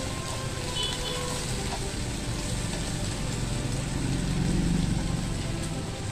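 Meat sizzling steadily on a tabletop grill plate, with faint background music. A low rumble swells briefly about four seconds in.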